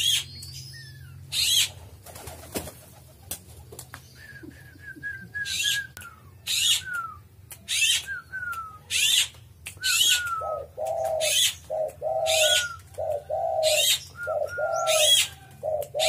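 Doves cooing, a repeated low phrase starting about two-thirds of the way through, over sharp high bird chirps repeating about once a second and a string of short whistled notes.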